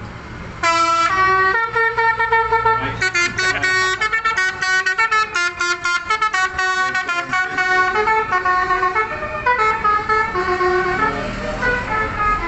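Vehicle horns sounding from a procession of passing vans, several horns at different pitches overlapping in a long run of honks that starts about a second in, over the low rumble of engines.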